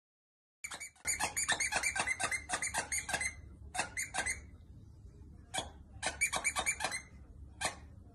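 Squeaky plush dog toy squeaked over and over as a dog bites down on it in its mouth. First comes a quick run of squeaks, about six a second, then a few single squeaks and a second quick run.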